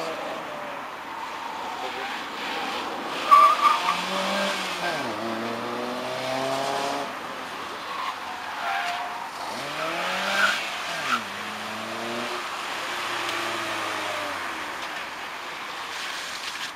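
Volkswagen Lupo driven hard through a cone slalom: its engine revs up and falls back again and again as it accelerates and brakes between the gates, with short tyre squeals about three and a half seconds in and again around ten to eleven seconds.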